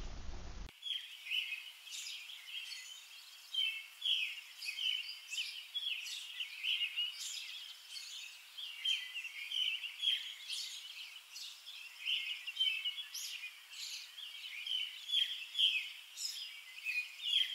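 Songbirds chirping and singing in a steady stream of short, high calls.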